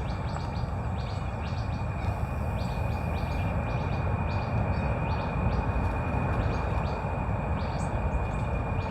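Songbirds chirping with short, high calls scattered throughout, over a steady low background rumble.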